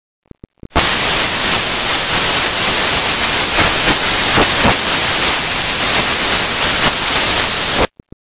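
Loud, even static hiss that switches on abruptly and cuts off just as suddenly, with a few faint clicks just before and after it.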